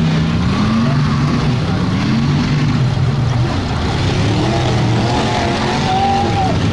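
Big engines of lifted mud-bog trucks running loud, the engine note climbing and dropping repeatedly as they rev.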